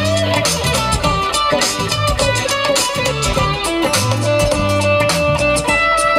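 Live band music in an instrumental break: electric guitar playing over a repeating bass line and a steady drum beat.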